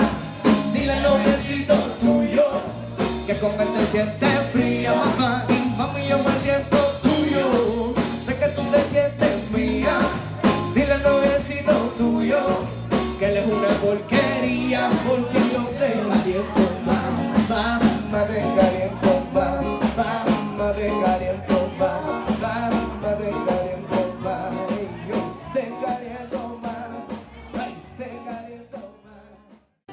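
Song with singing over a steady beat, fading out near the end.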